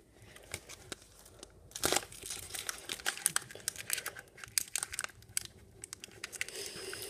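Foil booster-pack wrapper crinkling as it is wiggled and squeezed to work the trading cards out: irregular crackles, the loudest about two seconds in.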